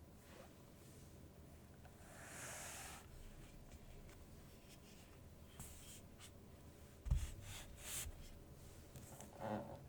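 Quiet handling at a mechanical keyboard: a soft brushing sound, then a few scattered key clicks and muffled low thumps, the loudest a thump about seven seconds in, before steady typing begins.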